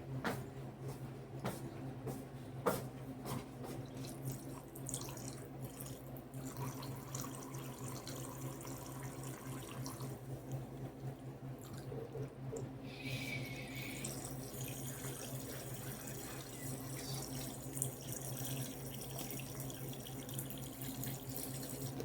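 Water trickling and dripping with a few small clicks as tool parts are washed in detergent, over a steady low hum.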